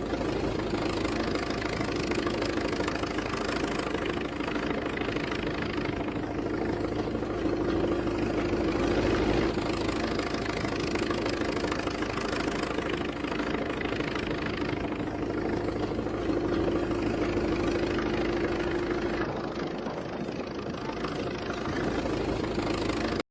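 Diesel engine of heavy machinery running steadily, its level rising and falling a little.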